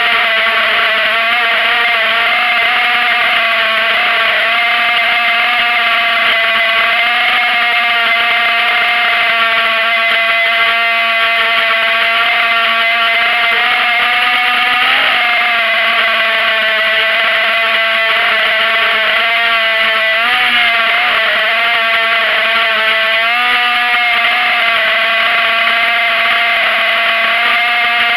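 ZMR250 FPV racing quadcopter's brushless motors and propellers whining steadily in flight, heard from its own onboard camera. The pitch wavers with the throttle and jumps up briefly about 15 seconds in and again about 20 seconds in.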